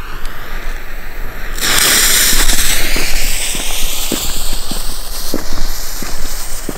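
Fuse of a Tieftonheuler bomb tube catching from a lighter and hissing loudly from about a second and a half in, the hiss slowly weakening, with footsteps on paving stones.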